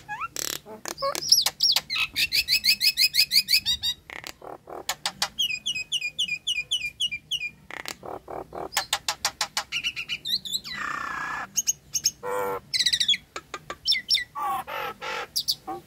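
Nias hill myna calling in a varied run of sharp clicks, fast strings of repeated whistled notes, and a longer harsh call sliding down in pitch about eleven seconds in.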